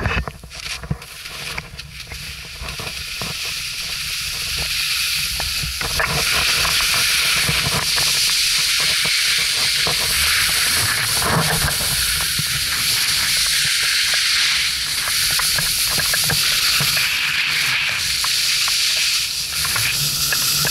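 Skis hissing and scraping over snow during a downhill run, building over the first few seconds and then steady, with a low rumble underneath.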